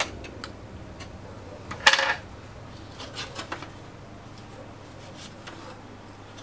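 Xbox One plastic outer casing being pried apart: a sharp click at the start, a loud snap about two seconds in as a clip lets go, then lighter clicks and rattles of the plastic shell as it is lifted off.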